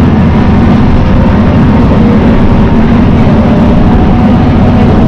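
Nagara 600-series diesel railcar running steadily along the line, heard from inside the car: a loud, even low drone of the engine and running gear.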